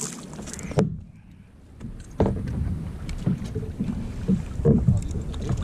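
Wind buffeting the microphone and water slapping against a plastic kayak hull, with a sharp knock about a second in and several smaller knocks and splashes in the second half.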